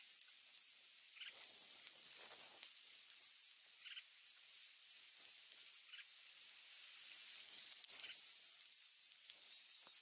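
A steady high hiss with short faint chirps every two seconds or so, and a soft rustle about two seconds in, as a red-whiskered bulbul feeds its chicks in a grass nest.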